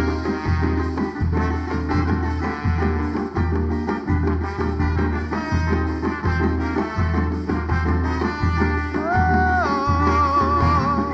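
Live band playing an instrumental passage of a bumba-meu-boi toada, with a steady low drum beat under dense accompaniment. Near the end a melodic line is held with vibrato.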